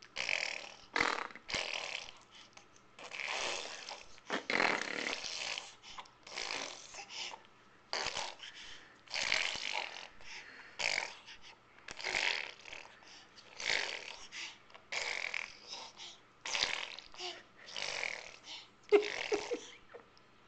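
Baby blowing raspberries, spluttering lips and tongue over and over in short breathy bursts, about one a second.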